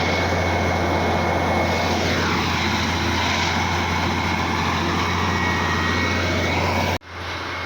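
Diesel engine of a railway track maintenance machine running with a steady low drone. About two seconds in, the higher-pitched noise drops away with a falling tone, and the sound breaks off sharply near the end.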